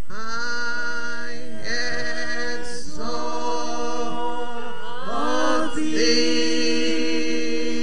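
Women's voices singing a slow worship song through microphones, largely unaccompanied, holding long notes and sliding between pitches.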